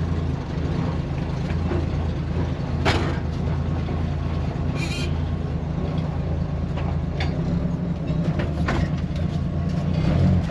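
Freshly rebuilt Chevrolet 250 inline-six engine running in an old truck, a steady low rumble with a few sharp clicks or knocks, about 3, 5 and 9 seconds in. Just after start-up it is not yet running smoothly.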